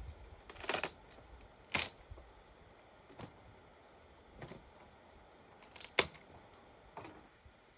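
A series of sharp, short cracks or clicks, about six of them at irregular intervals roughly a second apart, the loudest about six seconds in.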